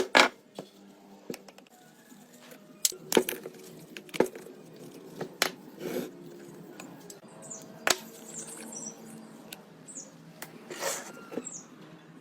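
Irregular clicks, taps and short scrapes, about a dozen spread unevenly, over a faint steady hum.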